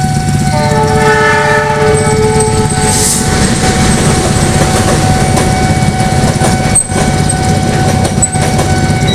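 Train horn sounding one loud blast of about two seconds, starting about half a second in, over the continuous rumble and wheel clatter of a train passing close by.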